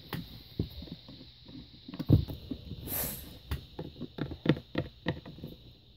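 Small plastic toy figures being handled and set down on a tabletop: a string of light irregular knocks and clicks, the loudest a thump about two seconds in, with a brief rustle near the middle.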